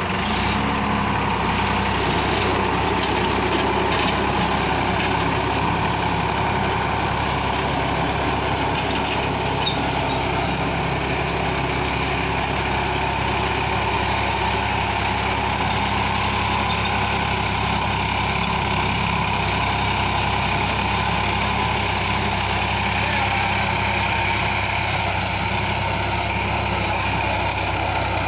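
Sonalika DI 745 tractor's diesel engine running steadily under load, driving a rotavator that churns through the soil.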